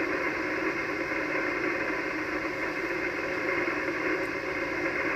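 Steady band-noise hiss from an Icom HF transceiver's speaker, tuned to 3.853 MHz on the 80-metre band: the open frequency between stations' transmissions.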